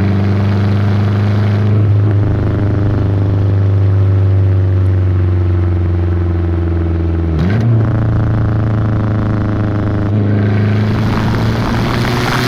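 Volvo 480 Turbo's 1.7-litre turbocharged four-cylinder engine driving: the engine note sinks slowly as the car slows, jumps abruptly about halfway through as a gear is changed, then climbs again under throttle with a rising rush of noise near the end.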